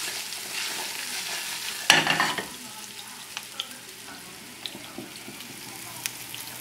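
Panko-breaded cutlets frying in oil in a pan over a moderate flame: a steady sizzle with scattered small pops, and a brief louder burst about two seconds in.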